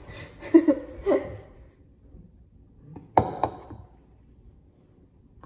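Two quick knocks, about a quarter-second apart, as a stainless steel mixing bowl is set down on the kitchen counter about three seconds in, each with a short metallic ring.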